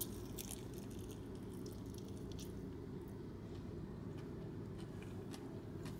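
A person biting into a fried chicken hot wing and chewing it, with soft wet mouth clicks and smacks scattered through, over a steady low hum.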